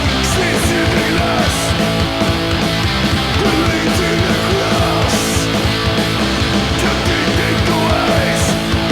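Punk rock band recording playing: distorted electric guitars over bass and drums, with cymbal hits cutting through several times.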